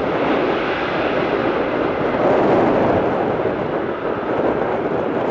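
Ryanair Boeing 737 jet airliner rolling at speed down a wet runway: a steady, dense rush of jet engine noise mixed with tyre spray, easing slightly near the end as it moves away.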